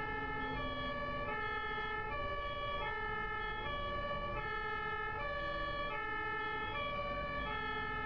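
German ambulance two-tone siren (Martinshorn) alternating steadily between a high and a low pitch, heard from the moving ambulance with engine and road noise underneath.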